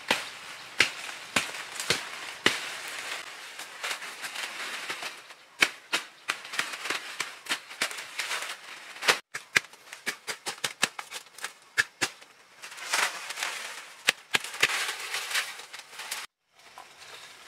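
A run of sharp cracks and knocks, irregular and at times several a second, over a rustling noise. The sound breaks off briefly twice.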